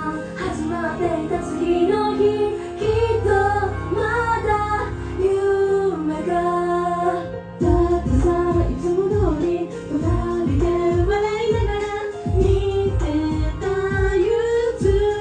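Live J-pop idol performance: female vocals sung into a handheld microphone over loud backing music. About seven and a half seconds in, the music drops out for a moment, then returns with a steady kick-drum beat.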